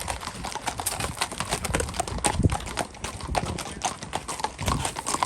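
Several horses' hooves clip-clopping, a dense, irregular run of sharp hoof strikes with a couple of heavier thuds.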